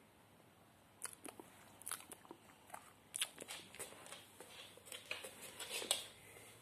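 Greyhound crunching a treat while moving about on a wooden floor. Irregular sharp crunches and clicks start about a second in, grow busier and louder toward the end, then stop.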